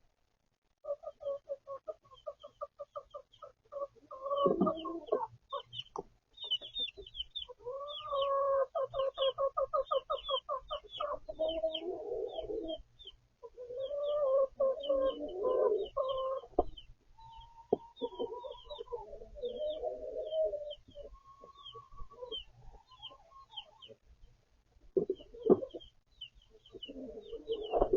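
Chickens clucking in quick runs of repeated clucks, over a steady stream of high, short chick peeps. It starts about a second in.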